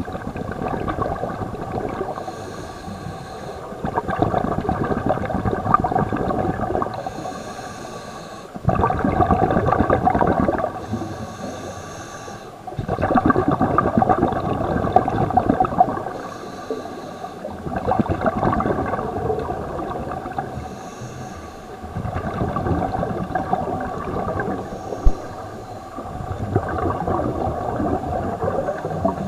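Scuba diver breathing through a regulator underwater, heard through a housed camera: a thin hiss on each breath in, then a loud rush of bubbles on each breath out, repeating about every four seconds for six or seven breaths.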